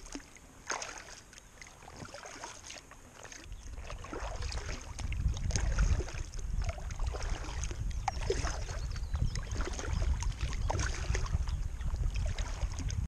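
Kayak paddle strokes: small splashes and water dripping off the blades beside an inflatable kayak. From about three to four seconds in, wind buffets the microphone with a low rumble that becomes the loudest sound.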